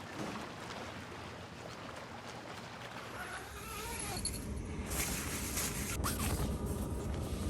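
Wind rumbling on the microphone, growing louder about five seconds in, with a few faint clicks.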